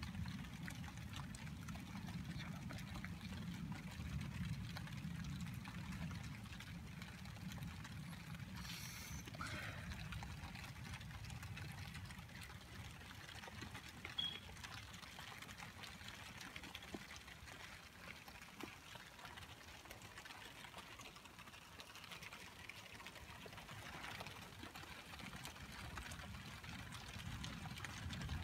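Faint, steady rain falling and trickling, over a low rumble that is stronger at the start and near the end.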